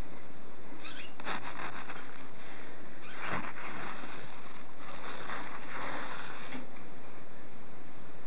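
Soft, irregular rustling and scratching over a steady hiss.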